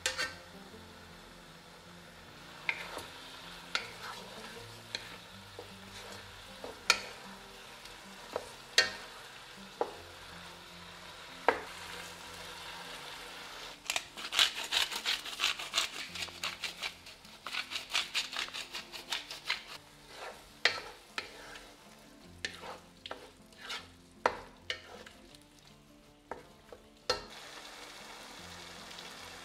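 Meat being stirred in a frying pan: sharp taps every second or two, then a dense run of scraping and clinking about halfway through, then scattered taps, over a faint sizzle.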